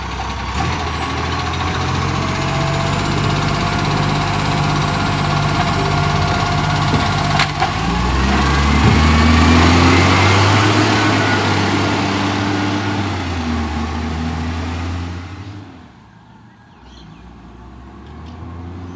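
Acco garbage truck's diesel engine, which has an exhaust leak, running steadily. After a short sharp sound about seven seconds in, the engine revs up as the truck moves off, then fades away near the end.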